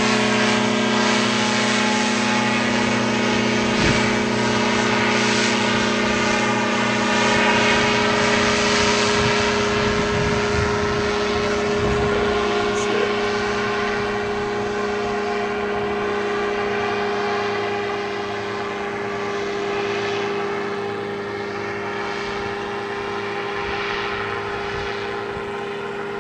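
Powered parachute's engine and propeller running steadily as the craft climbs away overhead, slowly getting fainter with distance.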